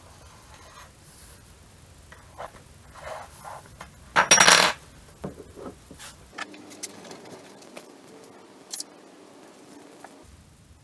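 A small aluminum wrench and a steel bolt are handled with light metal clinks. About four seconds in comes one loud, brief clatter of the metal pieces dropping onto the tabletop, followed by a few small clicks and taps.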